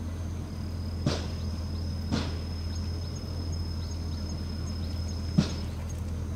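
A steady high insect trill over a constant low hum, with faint regular chirps about two and a half a second in its middle part. Three sharp knocks cut through it, the loudest near the end.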